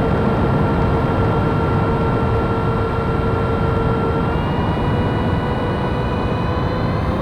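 Twin 70mm six-blade electric ducted fans running steadily over a heavy rush of air. Their whine shifts about four seconds in, one tone dropping away and higher ones taking over.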